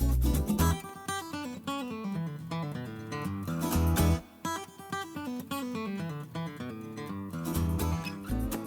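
Background music led by acoustic guitar, playing runs of picked notes over a low bass line.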